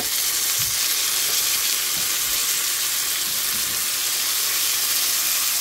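Beef steaks searing in hot oil and butter in a frying pan, turned over with metal tongs: a loud, steady sizzle that grows louder as the steaks are flipped onto their uncooked side.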